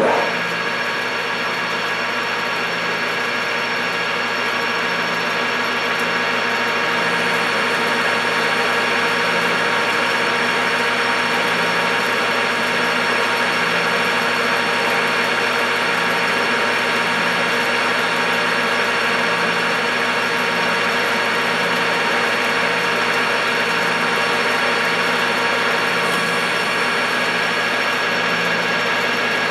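Grizzly G4003G gear-head metal lathe starting up and running steadily, its headstock gears whining, with a low pulse about every 0.7 seconds. The lathe is taking a light finishing cut of about ten thousandths on the turning bar, and a thin high tone comes in about a quarter of the way through and fades near the end.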